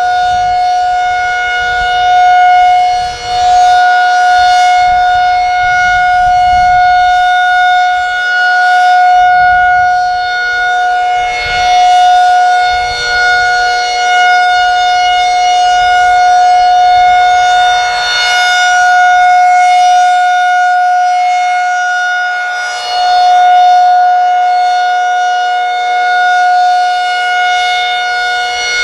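Federal Signal 2001SRN rotating outdoor warning siren sounding its monthly test: a loud, steady-pitched tone that swells and fades in loudness as the rotating horn sweeps past.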